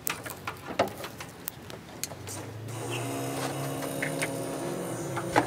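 Starter cranking the 1977 Lincoln Continental's V8, a steady whir from about three seconds in, as the engine turns over to draw fuel up through its mechanical fuel pump before it fires. Before that, a few light clicks and knocks.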